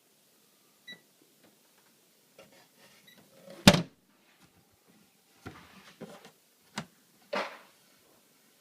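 A few separate knocks and clunks, with one sharp, loud knock just before four seconds in and a cluster of smaller ones in the second half.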